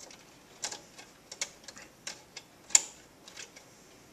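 Threaded coaxial F-connector being screwed tight by hand onto a sound system's input: a run of small, irregular metallic clicks and ticks, with one sharper, louder click a little under three seconds in.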